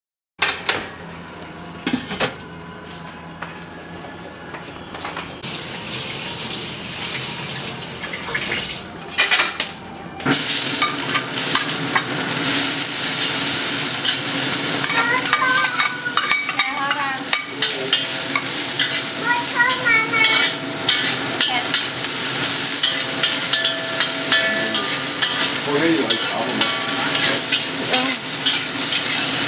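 A few quiet knocks, then about ten seconds in a loud, steady sizzle starts suddenly in a hot wok. A metal spatula scrapes and clatters against the wok as shredded scallions and ginger are stir-fried.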